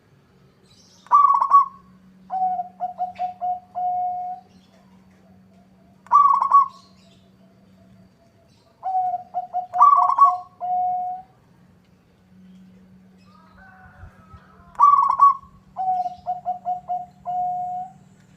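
Zebra dove (perkutut) singing its cooing song four times. Each phrase is a loud opening note followed by a quick run of short, lower staccato coos that ends on a longer held note.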